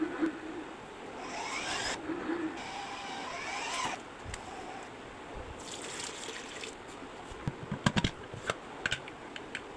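Water pouring in two long spells, then a run of sharp clinks and knocks like utensils against a pot, in a kitchen making daal and rice.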